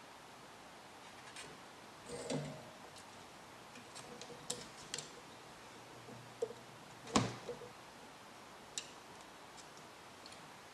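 Small hand tools such as pliers and wire cutters being picked up and handled: scattered light clicks and taps, with one louder knock about seven seconds in.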